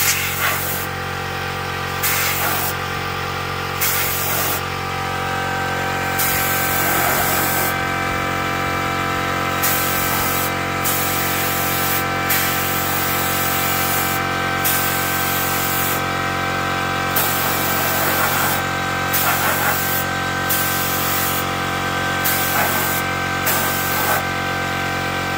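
Gravity-feed paint spray gun hissing in repeated bursts as the trigger is pulled and released, some bursts short and one lasting several seconds, over the steady hum of an air compressor running.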